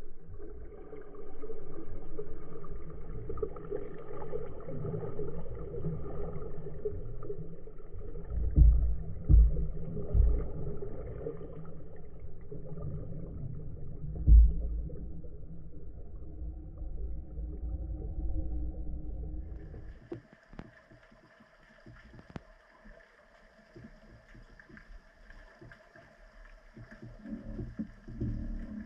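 Muffled underwater sound picked up through a diving camera's housing: a steady low rumble of water movement with a few heavy knocks. About two-thirds of the way through it cuts to a much quieter hiss with faint steady tones and scattered clicks.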